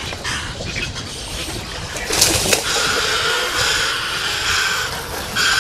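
Spinning reel drag buzzing in stop-start stretches as a big barracuda pulls line off against it, starting about halfway in, after a short burst of noise.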